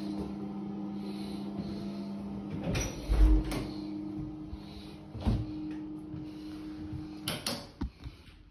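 A steady low hum with a few knocks and bangs over it. The loudest bang comes about three seconds in, with more at five seconds and near the end.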